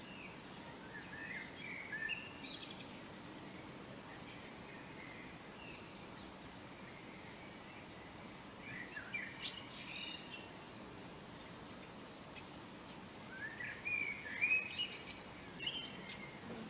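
A songbird singing three short warbling phrases of quick gliding notes, about a second in, about nine seconds in and about fourteen seconds in, over steady faint background noise.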